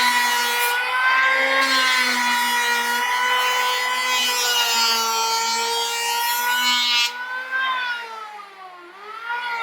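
APR electric hand planer running at full speed with a steady high whine and the hiss of its blades cutting into wood. About seven seconds in the cutting hiss stops and the motor's pitch falls as it winds down, then rises briefly near the end before falling again.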